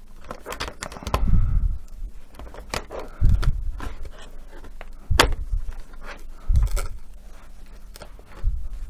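Handling noise of a laptop being worked on a workbench: about five dull knocks, with clicks and scrapes between them, as the complete display unit and its hinges are wiggled loose from the base.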